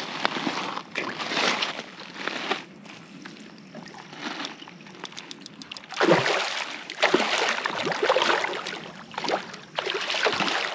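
Water splashing and sloshing in irregular bursts, louder at the start and again from about the middle on, with a quieter stretch between.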